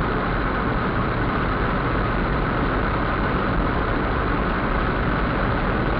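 Steady engine and tyre-on-road noise of a car driving on a highway, heard from inside the cabin through a dashcam's microphone.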